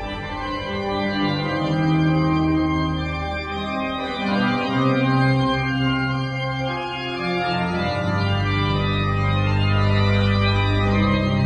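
Organ music: slow, held chords with deep bass notes that change every few seconds.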